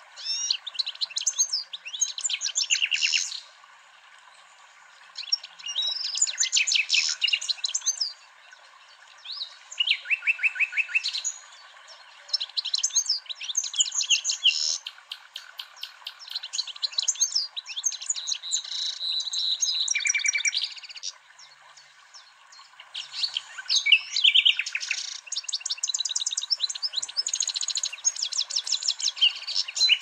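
European goldfinch singing in phrases of rapid twittering chirps, each a second to several seconds long with short pauses between, over a steady faint rush of flowing water.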